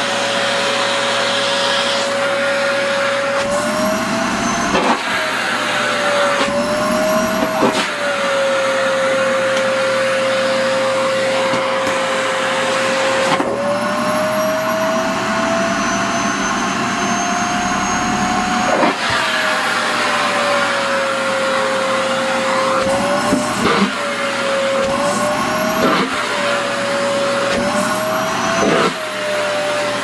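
Sharp EC-KP7F-A canister vacuum cleaner running steadily, its motor whine rising and falling in pitch several times as the skirt fabric is sucked into the nozzle, blocking the airflow, and is pulled free. A few brief knocks of the nozzle and tube come through the motor noise.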